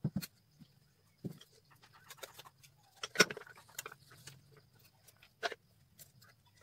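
Scattered light clicks and taps of thin wooden sticks and a small wooden frame being handled. The loudest knock comes about three seconds in and another comes a couple of seconds later.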